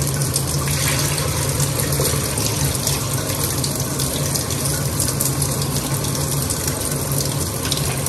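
Kitchen tap water running steadily into a plastic rice-washing bowl as rice is rinsed, with a steady low hum underneath.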